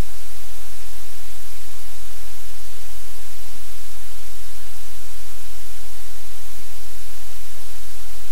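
Loud, steady static hiss with a low hum underneath, unchanging throughout, with no distinct sounds standing out from it.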